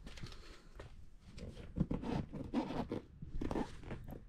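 Irregular rustling and scraping as a hand handles and shifts a black vinyl motorcycle seat, getting louder about a second and a half in.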